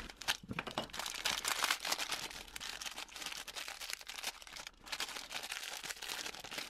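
Thin clear plastic packaging bags crinkling and rustling in the hands as they are cut open with a small knife and a wristwatch is unwrapped from them, with irregular small crackles throughout.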